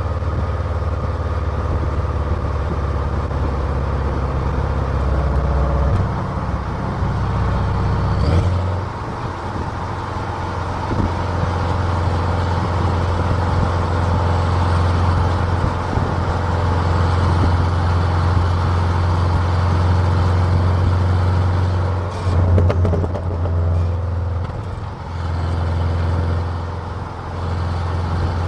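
Car exhaust heard from a microphone close to the tailpipe: a steady, loud, low engine drone whose note changes at about six and again at about eight and a half seconds in, with a few brief dips and changes in the engine note over the last several seconds.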